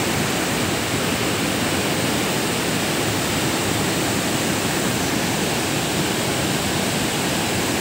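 Fast mountain river rushing over boulders in white-water rapids: a steady, unbroken rush of water.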